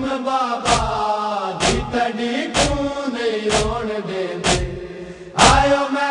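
A group of men chanting a Punjabi noha (mourning lament) in unison. It is kept in time by a sharp, even beat about once a second, the rhythm of matam chest-beating.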